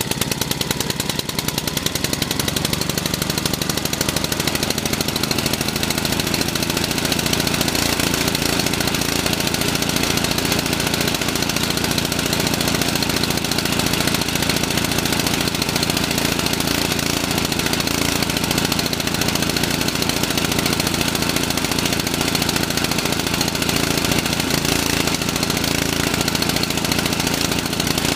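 Honda GC160 single-cylinder 5 hp engine on a rototiller, just pull-started and running at a steady speed with an even firing beat. This engine stalls out after half a minute or so; here it is still running smoothly.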